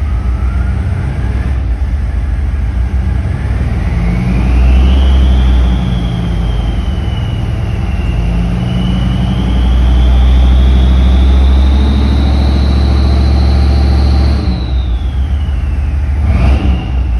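6.5-litre turbo-diesel V8 heard from inside the cab, running with a deep rumble while its revs rise and are held. A thin whine climbs in pitch with the revs and falls off, along with the loudness, about fourteen seconds in. The engine now has a replacement injection pump and a fluid damper and runs much smoother than before.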